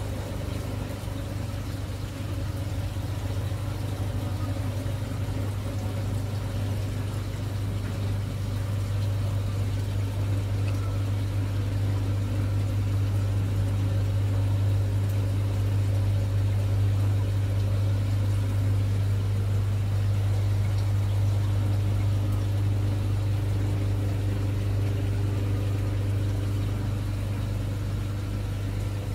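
Steady low hum of aquarium shop equipment (pumps and filtration): a strong deep drone with fainter steady tones above it, swelling slightly in the middle.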